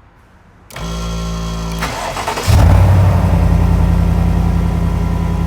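Truck engine being started: the starter cranks for about a second, then the engine catches with a jump in loudness and settles into a steady idle.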